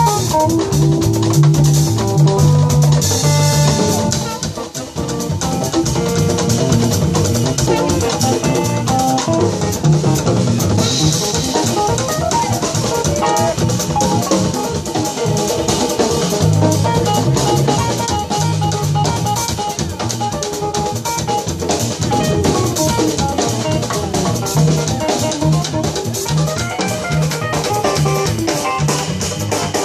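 Live jazz band playing, with drum kit and Uruguayan candombe hand drums (tambores) over a repeating bass line.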